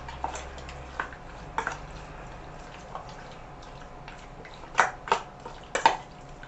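Marinating chicken pieces being mixed in a bowl: scattered clinks and knocks against the bowl, with the loudest few close together near the end.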